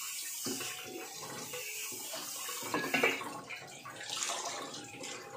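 Tap water running into a stainless steel sink and over a cast iron wok as it is scrubbed and rinsed, with a brief knock about three seconds in.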